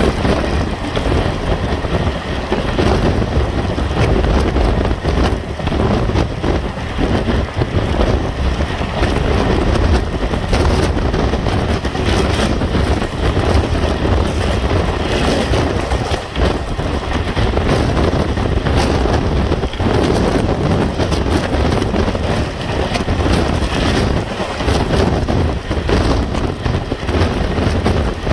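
Express passenger train running at speed, heard from an open coach doorway: a steady loud rumble of the coaches with constant clatter of wheels on the rails, and wind buffeting the microphone.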